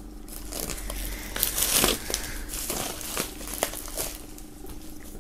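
Plastic shrink-wrap film being peeled off a hardcover book, crackling in irregular bursts that are loudest about two seconds in.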